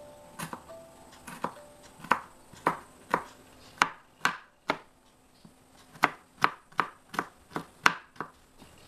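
A kitchen knife chopping carrots on a wooden cutting board: sharp single knocks at an uneven pace, a short pause about halfway, then a quicker run of strokes.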